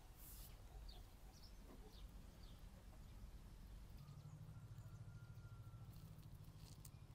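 Near silence: faint rural outdoor ambience with a few distant bird chirps and a low hum that rises slightly about four seconds in.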